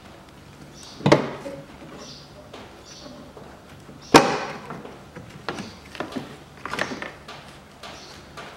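Plastic latches of a Peugeot 408's cabin air filter cover snapping loose as the cover is pried off: two sharp clacks, about a second in and near the middle, the second the loudest, then lighter plastic knocks and rattling as the cover is worked free.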